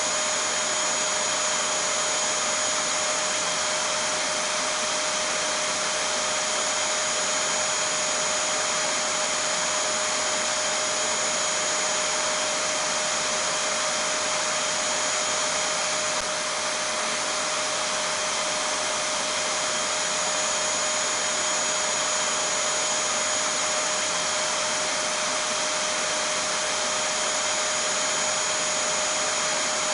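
Vacuum cleaner running steadily as a continuous white-noise drone, with a steady whine held on top.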